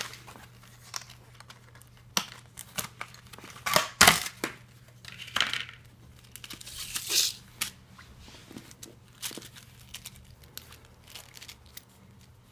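Stiff clear plastic blister packaging being pried open and handled: irregular crackling and crinkling with sharp snaps, the loudest snap about four seconds in, followed by lighter clicks and rustles.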